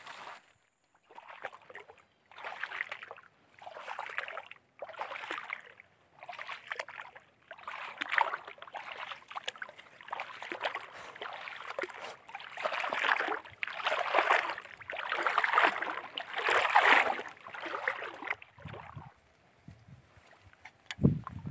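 Water swishing and sloshing in a steady rhythm of about one stroke a second, as someone wades through deep floodwater; the strokes stop near the end.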